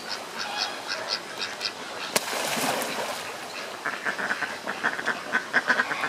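Pomeranian duck calling: a fast run of short quacks in the second half, with quieter, higher calls at the start and a single sharp click about two seconds in.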